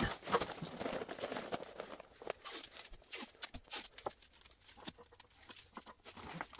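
Irregular small clicks, ticks and rustling as CSST gas tubing and its metal fitting are handled with gloved hands.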